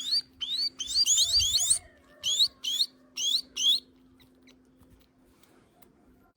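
Young birds giving hungry begging calls while being hand-fed from a feeding tube: quick, sharply rising high chirps, about three a second, that stop after about four seconds.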